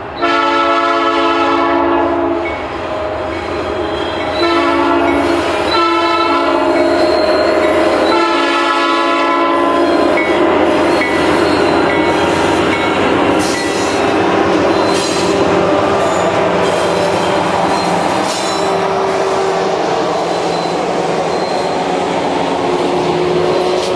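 Canadian National freight locomotive sounding its multi-chime air horn in three blasts, the first and last long, within the first ten seconds. The freight train then rolls past with a steady rumble and thin, high wheel squeal.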